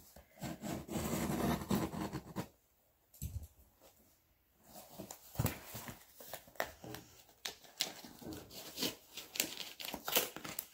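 Packing tape and the cardboard of a shipping box being pulled and torn open by hand, with crinkling and rustling. A couple of seconds of handling, a short pause, then a busy run of quick rips and crinkles from about five seconds in.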